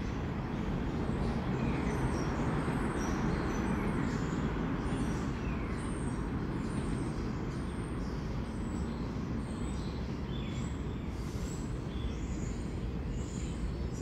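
Low steady rumble of a departed R46 subway train fading along the elevated line, with small birds chirping now and then.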